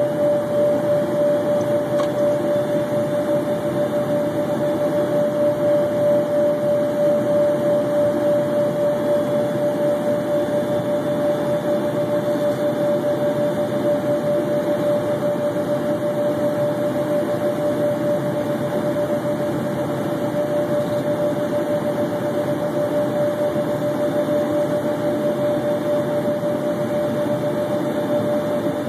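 Steady cabin noise of an Embraer Phenom 100 twin-turbofan jet in flight: rushing airflow and engine drone, with one steady tone over the rush.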